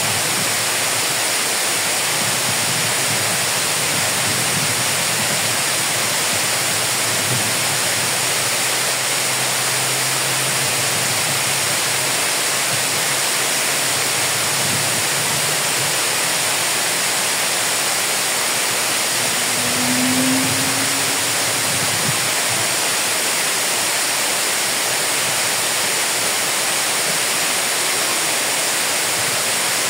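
Reservoir water overflowing the crest of a curved masonry dam and pouring down its face into the basin below: a steady, heavy rush of falling water.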